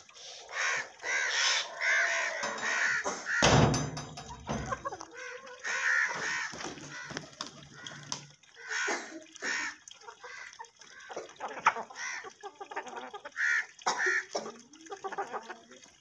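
Alexandrine parakeet calling repeatedly in short separate calls, with pauses between them. A brief low rumble comes about three and a half seconds in.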